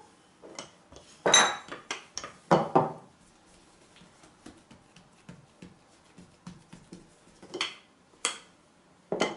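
Wooden rolling pin rolled over a sheet of dough on a wooden worktop: a few loud strokes and knocks in the first three seconds, then soft rubbing and light taps as the dough is smoothed by hand, and sharp knocks again near the end as the rolling resumes.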